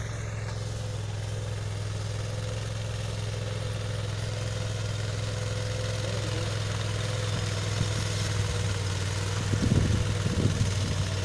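Tea harvesting machine's engine running steadily with a constant low drone, growing a little louder near the end.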